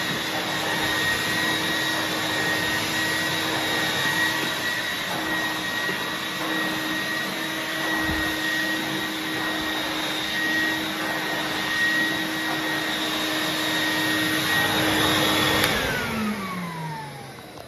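Numatic CT370 vacuum motor running steadily with a high whine, dry vacuuming. It is switched off about 15 seconds in, and its pitch falls as the motor winds down.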